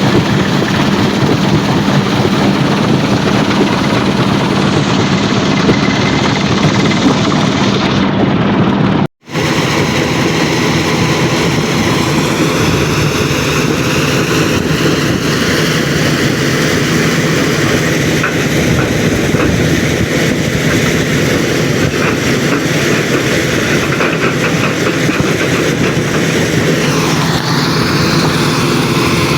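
Heavy machinery running continuously: a steady engine drone under a dense, noisy clatter. About nine seconds in, the sound cuts out for an instant and then resumes.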